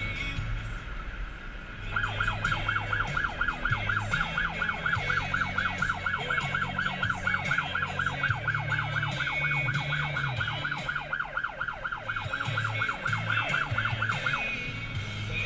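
Emergency vehicle's electronic siren in yelp mode, a fast repeating whoop about four times a second. It starts about two seconds in and stops shortly before the end, over a steady low rumble.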